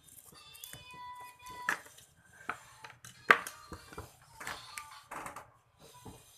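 Clicks, taps and knocks from handling a laptop charger and its cable, the loudest knock about three seconds in, with brief musical tones in the first two seconds.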